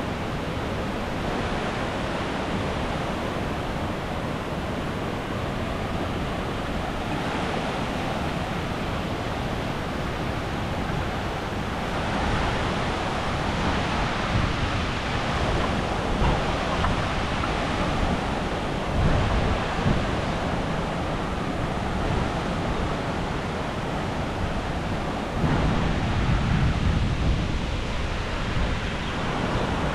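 Steady rush of falling water from the Krka river's waterfalls, with small jumps in level between takes. Wind buffets the microphone, more strongly in the last few seconds.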